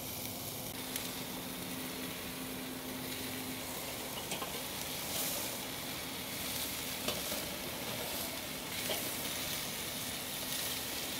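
Beef burger patties sizzling as they sear on the grate directly over hot charcoal in a kettle grill, a steady hiss with a few faint clicks scattered through.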